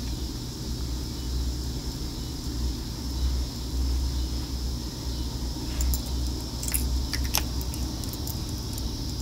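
Steady low background hum with a faint, steady high-pitched whine over it. A few faint clicks fall between about six and seven and a half seconds in.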